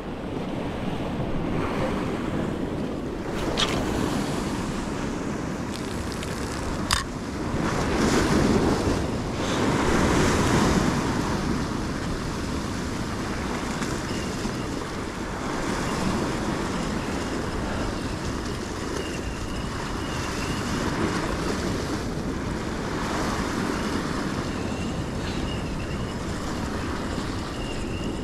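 Sea surf washing against a rocky shore, swelling and easing every few seconds, with wind buffeting the microphone. Two sharp clicks sound in the first several seconds.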